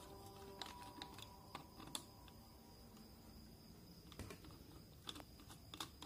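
Faint, irregular small clicks and scrapes of a screwdriver working the terminal screws on a water-pump automatic controller's circuit board.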